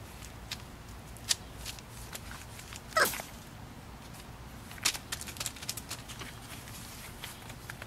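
Four-week-old pointer puppies moving about with scattered clicks and scuffles. About three seconds in, one short, loud puppy yelp falls in pitch.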